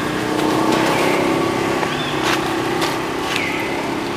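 A motor engine running steadily nearby, with a few short high chirps over it in the second half.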